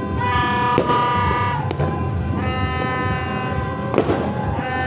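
Horns blown in three long held blasts, each about a second and a half, with sharp bangs of fireworks going off between and over them, the loudest about a second in and again near four seconds in.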